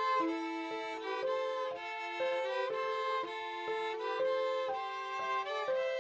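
Background music led by violin, with several held notes sounding together and the notes changing about every half second.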